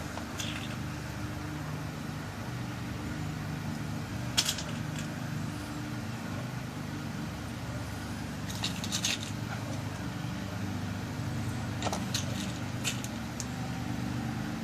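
A few small sharp metallic clicks as pin-tumbler pins are set into a lock cylinder plug: a single click a third of the way in, a short cluster past the middle and several more near the end, over a steady low hum.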